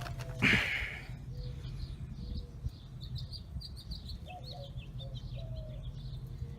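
Small birds chirping repeatedly in the background over a steady low hum, with a brief noisy burst about half a second in.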